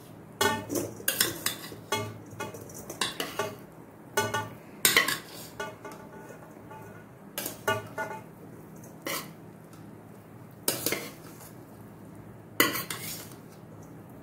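Stainless steel pressure cooker clanking and scraping against a steel bowl as cooked rice is tipped out: sharp ringing metal knocks, many in the first five seconds, then a few more spaced a second or two apart.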